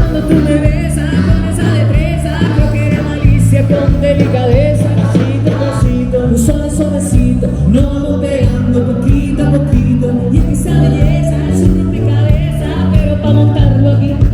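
Loud music with singing: a vocal melody over a steady bass line and beat.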